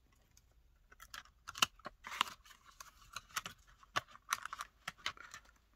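Paper banknotes and a clear plastic cash-envelope sleeve being handled: light rustling and crinkling with scattered small clicks.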